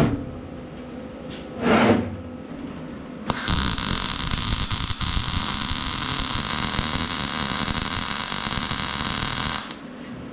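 Vulcan OmniPro 220 welding arc running in one steady bead of about six seconds, a crackling hiss that starts and stops abruptly. It is preceded by a brief louder sound about two seconds in.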